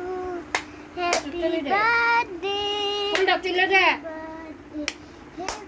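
A voice singing devotional chanting in long held, gliding phrases, with a few sharp hand claps: two in the first second or so and two near the end.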